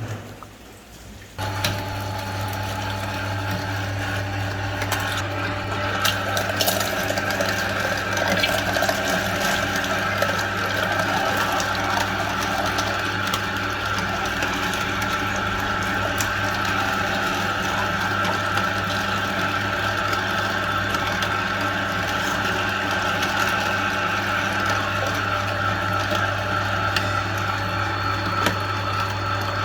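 Electric meat grinder switched on about a second and a half in, its motor then running steadily with a strong low hum.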